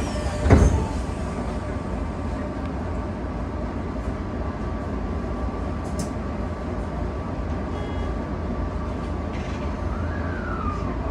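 Tokyo Metro 18000 series train standing at a platform, its on-board equipment giving a steady low hum with a faint steady tone, heard from inside the cab. A single loud thump comes about half a second in, and a short falling tone near the end.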